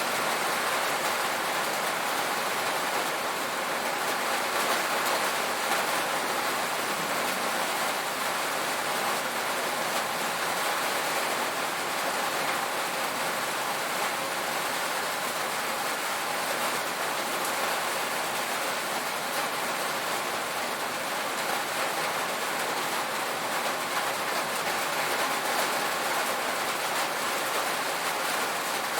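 Steady heavy rain drumming on a tin roof, an even hiss of countless drops without letup.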